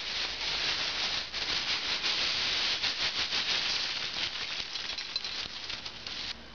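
Pumpkin seeds poured from a plastic bag onto a bowl of nuts: a steady, dense rattle of many small seeds landing, thinning out near the end as the bag empties.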